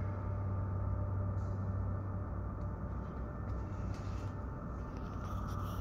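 Steady machinery hum in an industrial hall: a strong low drone with faint higher steady tones over an even mechanical noise.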